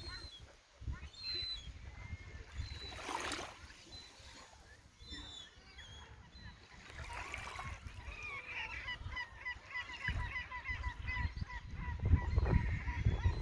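Gulls calling: a few short calls, then from about halfway a long run of rapid repeated cries. A low rumble grows under them near the end.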